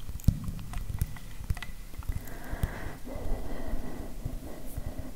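Fingertips tapping and scratching directly on a handheld recorder's microphone capsules: a fast, irregular run of close, dull knocks, with a softer brushing stretch around the middle.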